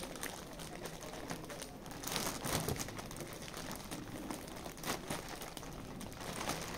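Polythene bag crinkling and rustling quietly as it is opened and handled.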